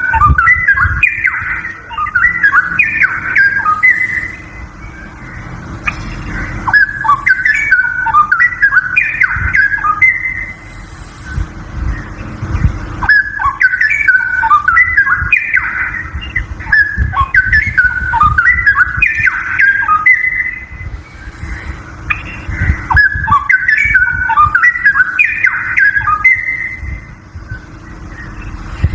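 Straw-headed bulbul singing: loud, quick warbled phrases, each several seconds long, repeated after short pauses, over a steady low hum.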